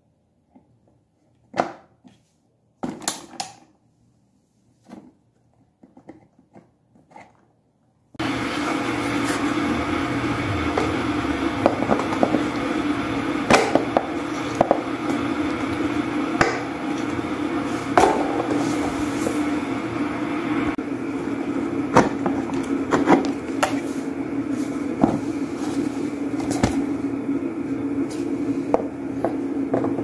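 Plastic fan blades and hub clicking and knocking as they are handled. About eight seconds in, a steady hum starts suddenly and runs on, with more clicks over it.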